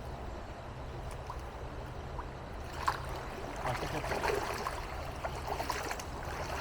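Creek water running steadily. From about three seconds in come irregular splashes at the surface as a hooked small smallmouth bass fights on the line.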